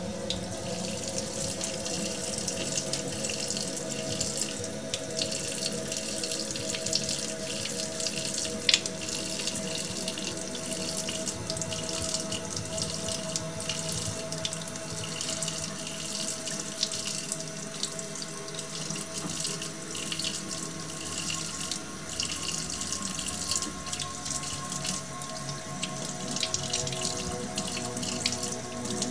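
Kitchen tap running in a thin steady stream into a stainless steel sink, the water splashing on the steel. There is one sharp knock about nine seconds in.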